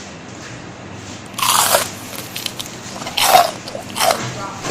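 Crispy fried chicken skin crunching as it is bitten and chewed, with three loud crunches about a second or more apart and fainter crackles between them.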